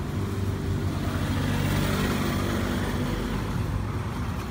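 A motor vehicle's engine running close by, swelling to a peak about halfway through and then easing off as it passes.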